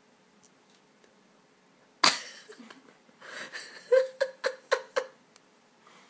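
Stifled laughter and breath forced out through the nose by a woman whose mouth is stuffed full of Maltesers. A sudden burst comes about two seconds in, then a quick run of about five short bursts near the end.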